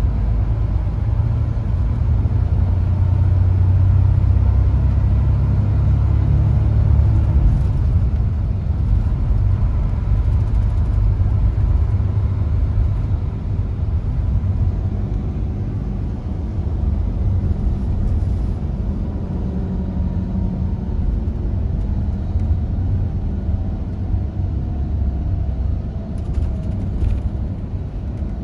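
Mercedes-Benz Tourismo coach under way, heard from inside the passenger cabin: a steady deep rumble that eases slightly about halfway through.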